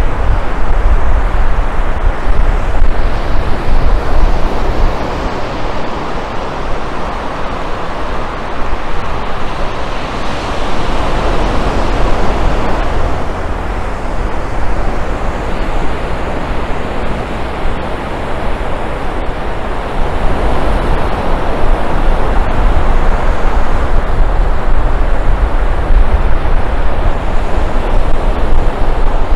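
Steady wash of ocean surf with wind buffeting the microphone, the surf swelling louder a few times.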